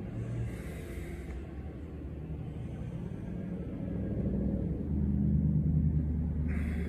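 Two forceful rushes of breath, one about a second in and one near the end, from bhastrika bellows breathing with the arms raised, over a steady low rumble.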